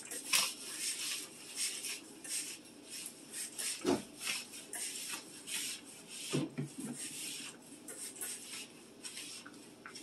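Flat mop with a cloth pad pushed back and forth over a parquet wood floor: a run of short rubbing swishes, about two strokes a second, with a knock about four seconds in.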